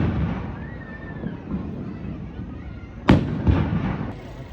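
Aerial fireworks shells bursting: the rolling tail of one burst at the start, then a sharp boom about three seconds in that rumbles and echoes away with a few smaller cracks after it.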